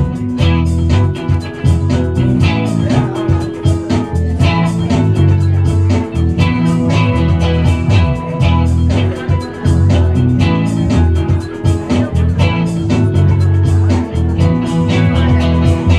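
Live band music with no vocals: electric guitar played over keyboard, with a steady low bass line and beat.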